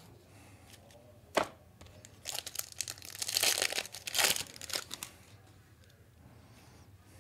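A trading-card pack wrapper being torn open and crinkled by hand: one sharp click about a second and a half in, then a flurry of tearing and crinkling from about two to five seconds in.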